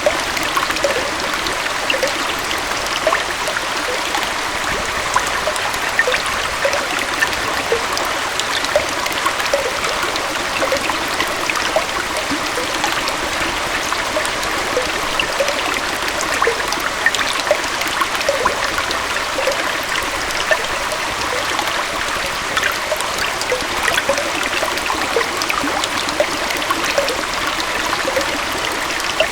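Small waterfall splashing and trickling over rocks into a stream: steady rushing water with many small splashes and gurgles.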